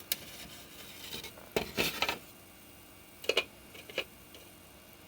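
A few light clicks and scrapes of small objects being handled on a workbench, with several separate short knocks, one pair close together in the middle.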